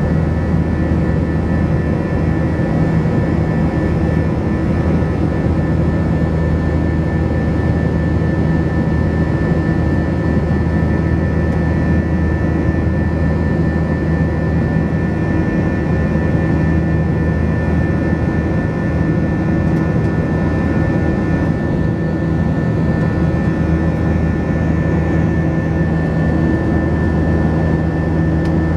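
Airbus A321 jet engines running steadily during the climb after takeoff, heard inside the cabin beside the engine: a constant roar with several steady humming tones over it.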